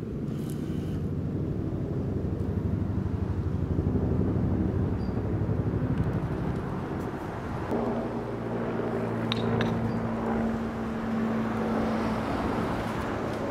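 Street traffic: a motor vehicle's engine running close by, with a second steady engine hum coming in about eight seconds in.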